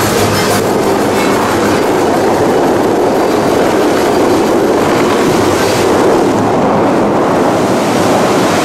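Dubai Fountain's water jets and spray crashing back onto the lake, a steady loud rush of water.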